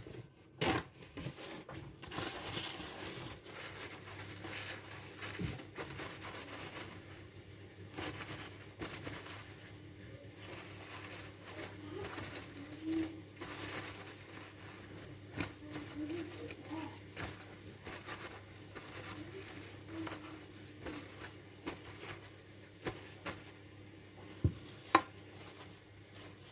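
Hands at work in a kitchen during bread-making: continuous rustling and crinkling with scattered light clicks and knocks, over a steady low hum. A sharp knock comes near the end.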